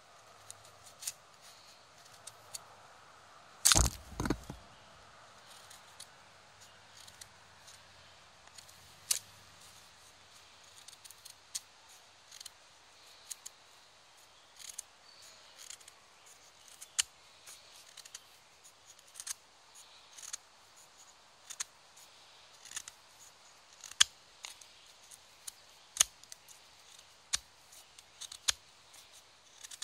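Condor Bushlore knife's 1075 high-carbon-steel blade shaving thin curls down a wooden stick to make a feather stick: a string of short, crisp cuts, irregular, about one or two a second. A louder double knock comes about four seconds in.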